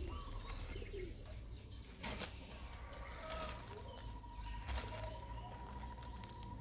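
Quiet background with a low rumble and a few soft crinkles and clicks from a plastic snack packet being handled by a macaque, with faint bird calls now and then.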